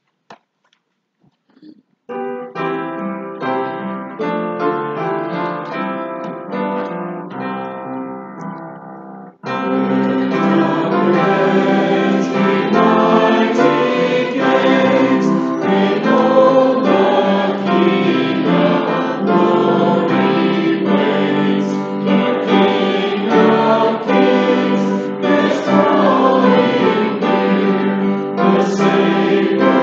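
A piano plays a hymn introduction, starting about two seconds in. About nine and a half seconds in, the congregation comes in together, singing the hymn over the piano accompaniment, louder and fuller than the introduction.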